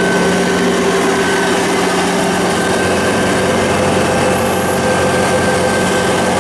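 Rice combine harvester running steadily close by: a continuous mechanical drone with a steady high whine over it.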